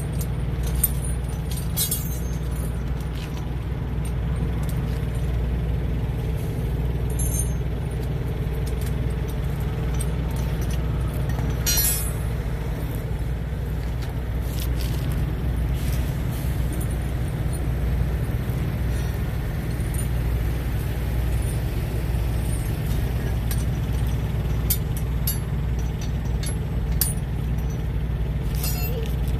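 Metal tire chain links clinking and rattling now and then as a truck snow chain is pulled across between the dual tires and hooked, over a steady low rumble of an idling diesel truck engine.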